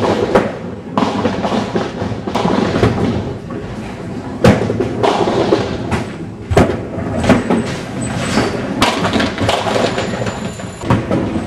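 Nine-pin bowling balls thudding onto wooden alley lanes, rolling, and crashing into the pins. Sharp knocks come every second or two over a steady rumble of rolling balls, with the loudest crash about halfway through.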